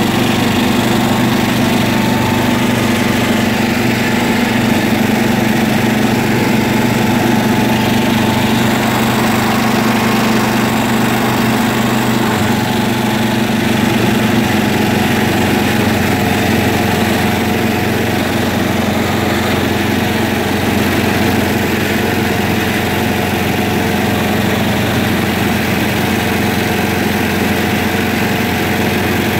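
John Deere tractor's engine running steadily while it drives, with a small change in its note about twelve seconds in.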